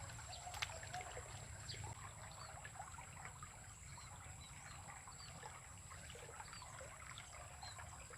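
Faint trickling of water in a small ditch, with many small scattered ticks and short chirps over a low steady hum, and one sharp click about half a second in.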